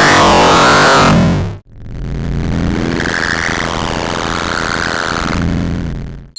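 Two synthesized sci-fi sound effects in a row, both dense, harsh noise with wavering tones through it. The first cuts off abruptly about a second and a half in. The second swells up and carries on, its tones wobbling up and down, then fades out just before the end.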